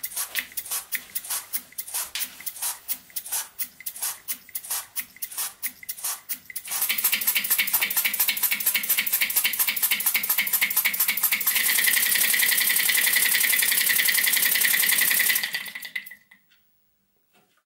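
Small homemade brass model steam engine running slowly, its piston and valve gear clicking at about four strokes a second. About seven seconds in it is running fast, a louder, rapid, even chatter, which cuts off near the end.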